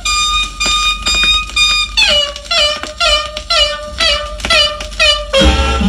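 Latin dance record playing on a turntable: a solo lead instrument holds a high note, then plays a string of short swooping squeals, about two a second, in imitation of a squealing turkey hen. Near the end the full band with bass comes in.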